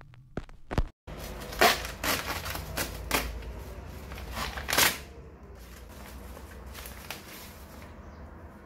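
Kraft paper envelope being torn open and handled: a few short clicks in the first second, then several sharp tearing and crackling rasps, followed by a quieter paper rustle.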